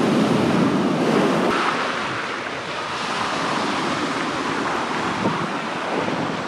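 Sea surf washing onto the beach, a steady rush of waves, louder over the first couple of seconds, with some wind on the microphone.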